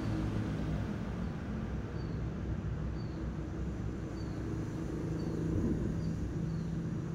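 A motor runs steadily with a low, even hum. Faint short high chirps come roughly once a second over it.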